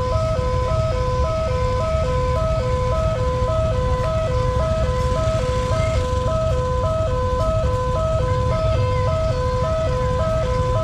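Indonesian railway level-crossing warning siren sounding at a fast tempo, switching rapidly and evenly between two pitches, about one high-low cycle every three-quarters of a second. A steady low rumble runs underneath.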